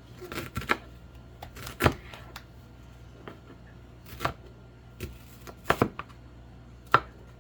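Kitchen knife cutting a red onion, each stroke ending in a sharp knock on the cutting board: about a dozen irregular, unhurried strokes, some in quick pairs, two of them much harder than the rest.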